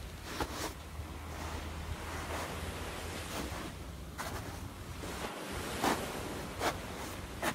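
Steady wash of sea surf with wind rumbling on the microphone. Several short crisp scuffs cut through it, the last few about a second apart: bare feet stepping in sand.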